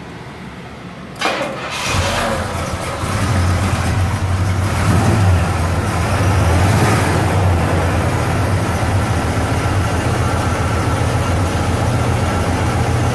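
Pontiac 400 V8 in a 1973 Grand Am starts about a second in, then settles into a steady idle with a deep low hum.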